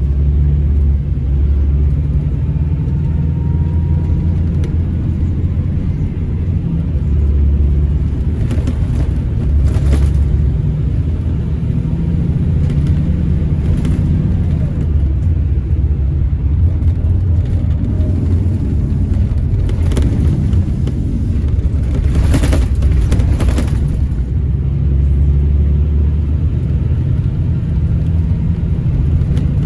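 Scania Irizar Intercentury 12.32 coach driving, heard from inside the passenger cabin: a loud, steady low rumble of diesel engine and road, its pitch shifting slightly now and then. A few short sharp noises sound along the way, the strongest a little past the middle.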